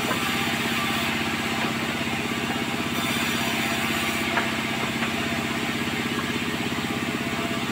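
An engine running steadily with a rapid, even pulse, plus a couple of light knocks about four and a half seconds in and near the end.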